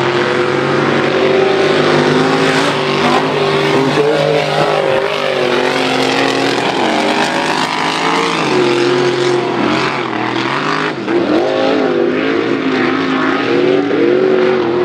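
Several big-block V8 race truck engines running hard together, their pitch rising and falling as the throttle is worked on and off.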